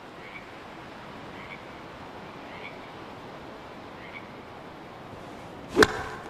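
A golf club striking a ball off the tee: one sharp crack near the end. Under it, a faint chirp repeats about once a second over a quiet evening background.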